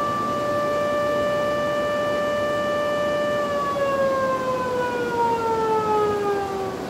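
Civil-defense warning siren sounding a steady tone, then falling in pitch from about halfway through until it dies away at the end. It is the flood evacuation alarm for a rapidly rising river.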